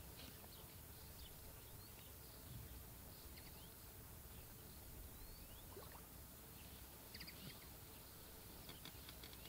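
Near silence outdoors with faint birdsong: scattered short chirps and whistles throughout, over a faint low rumble.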